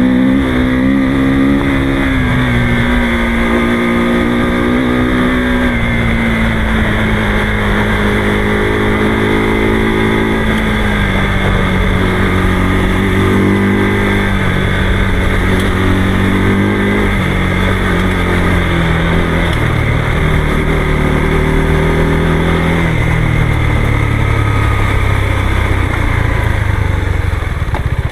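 Motorcycle engine running while under way, its note drifting slowly lower with small rises and falls, then dropping to a lower note near the end.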